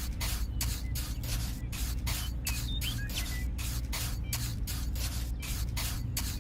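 Rhythmic hissing, about four short hisses a second, over a steady low hum.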